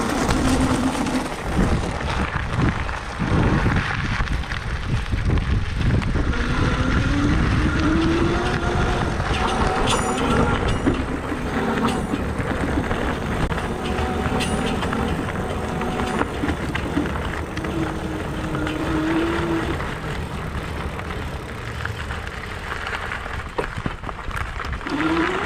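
Lectric v3.0 step-through e-bike hub giving a bad grinding noise, a sign of a fault in the new bike. Its whine rises and falls in pitch over a low rumble, with a few sharp ticks.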